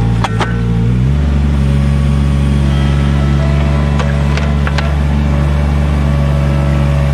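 Engine of a compact loader running steadily while its backhoe attachment digs a trench, with a few sharp clicks, three of them close together about four to five seconds in.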